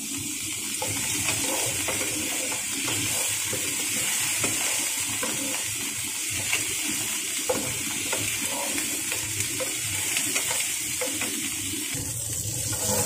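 Chicken pieces and ginger sizzling in oil in a nonstick frying pan, with a steady hiss, while a wooden spatula stirs them, scraping and giving a few sharp taps against the pan.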